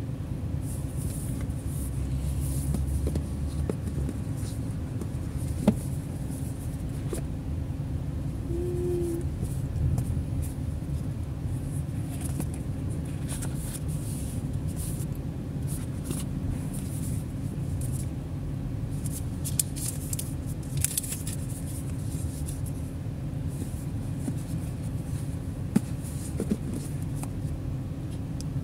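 Handling of a cardboard smartphone retail box: the lid sliding off, with light rustling, scraping and a few sharp clicks from the packaging and inner tray as items are taken out. A steady low rumble sits under it throughout.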